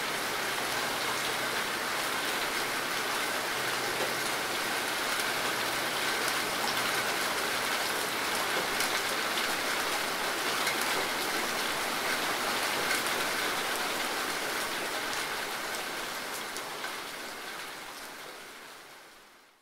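Steady heavy rain falling, fading out over the last couple of seconds.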